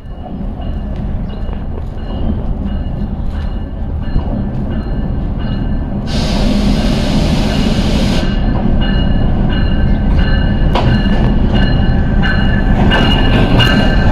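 A GEU-20 (GE U20C) diesel-electric locomotive hauling a passenger train into the platform. Its engine rumble grows steadily louder as it draws near, with a steady high-pitched squeal from the wheels. About six seconds in, a loud hiss lasts some two seconds.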